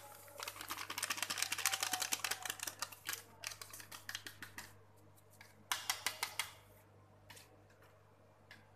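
A packet of dry yeast being shaken and tapped empty over flour in a steel bowl: a quick run of rustling clicks for about three seconds, then a shorter burst a little past halfway.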